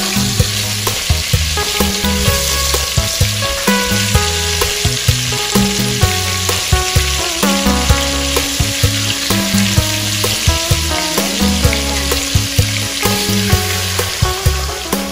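Fish steaks sizzling as they fry in oil in a pot, turned now and then with wooden chopsticks. Near the end water is poured into the pot. Background music with a beat runs underneath.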